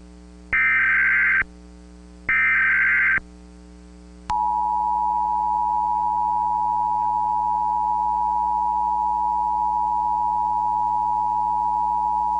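Emergency Alert System tones: two short bursts of the SAME header's screechy data tones about a second apart, then, about four seconds in, the steady two-tone EAS attention signal begins and holds.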